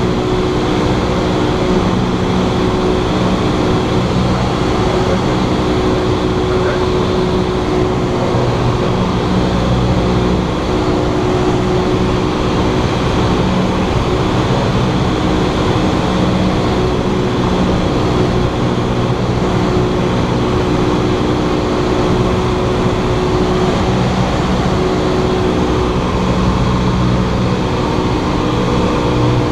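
Cessna 172's piston engine and propeller running steadily: a loud, even drone with a few constant low tones over a noisy rush.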